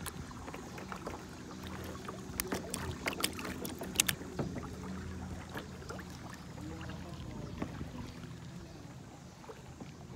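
Plastic sit-on-top kayak on the water: water lapping and handling noise, with a cluster of sharp knocks and clicks on the hull from about two to four seconds in, the loudest near four seconds, over a low steady hum.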